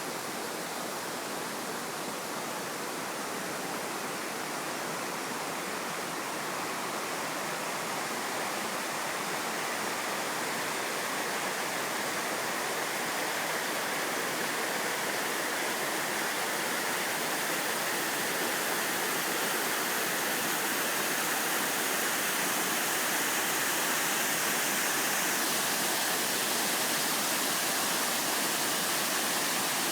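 Waterfall splashing in a steady, continuous rush, growing slightly louder over the stretch.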